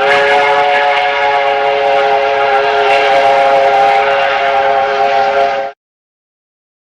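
A multi-tone train horn sounding one long held chord, cutting off abruptly about five and a half seconds in.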